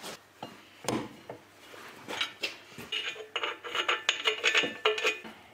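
Metal parts clinking and scraping as a VAZ-2110 brake caliper is fitted over its brake disc on an axle hub. There is a dull knock about a second in, then a run of quick, ringing clinks that grows denser toward the end.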